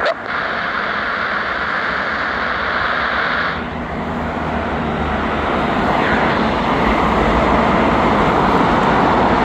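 Jet engine noise of an Airbus A320 rolling out on the runway after landing, a steady rushing sound. The higher part of the noise drops away about three and a half seconds in, and the rest continues, rising a little later on.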